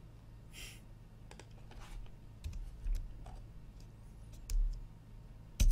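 Irregular computer keyboard key presses and mouse clicks, scattered and getting busier toward the end, with one louder click near the end, over a low steady hum.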